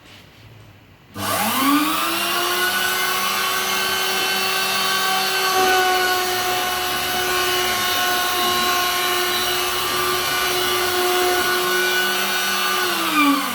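Router spindle on a hobby CNC machine spinning up with a rising whine about a second in, then running at a steady high speed on a second pass cutting a circle in a plastic bucket lid. It winds down, the whine falling in pitch, just before the end.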